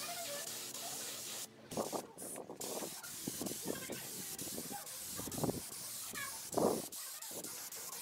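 Compressed-air spray gun hissing steadily as a finish is sprayed onto wood, its trigger let off briefly three times about two seconds in. A few short low bumps sound under the hiss, the loudest near the end.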